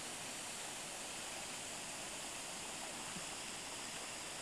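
Steady rushing of running water, an even hiss with no change in level.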